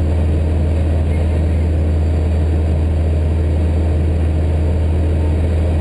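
Socata TB9 Tampico's four-cylinder Lycoming engine and propeller running steadily in flight, a constant low drone as heard inside the cabin.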